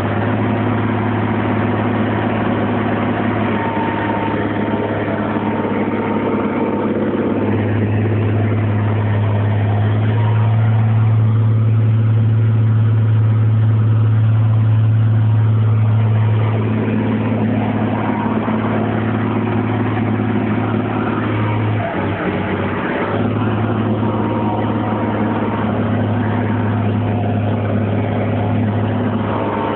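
MTZ 1221.3 (Belarus) tractor's six-cylinder turbo diesel running under steady load, pulling a 5.2 m disc harrow, heard from inside the cab. The engine drone grows heavier and louder for several seconds in the middle, then dips briefly a little after twenty seconds in before settling back.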